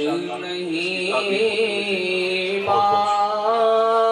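Slow, chant-like vocal music of long held notes, wavering at first; a new, steadier note comes in about two-thirds of the way through.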